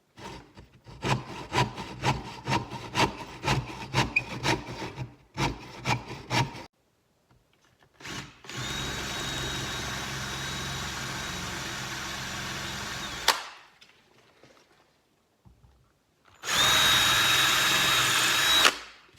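Quick back-and-forth strokes of a hand saw in wood for about six seconds. Then an electric power tool runs steadily with a high whine, first for about five seconds and then, louder, for about two seconds.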